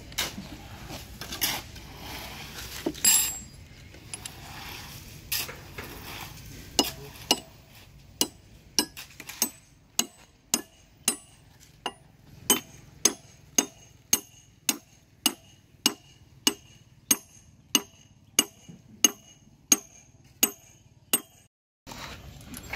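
A hand hammer striking the steel parts of a Soosan hydraulic rock breaker: a few scattered metal clinks and knocks, then from about seven seconds in a steady run of ringing metallic blows, a little under two a second, that stops abruptly near the end.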